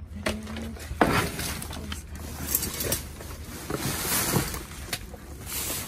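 Plastic wrapping and trash bags crinkling and rustling as items are handled and shifted, in uneven bursts with a sharper crackle about a second in.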